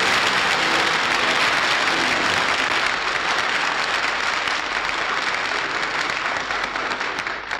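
Audience applauding, thinning out and dying away near the end.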